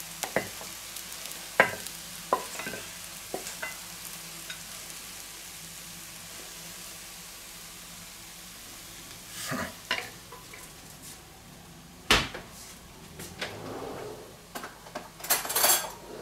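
A wooden spatula scraping and tapping fried dumpling pieces out of a hot nonstick frying pan onto a plate, with short clicks and scrapes, while the food in the pan still sizzles softly. The sizzle fades over the first half, and there is a sharp thump just after twelve seconds.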